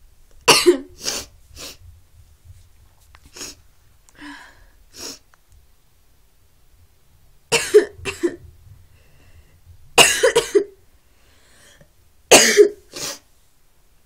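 A sick person coughing in repeated fits: four loud bouts, each a harsh cough followed by one or two shorter ones, with softer coughs in between.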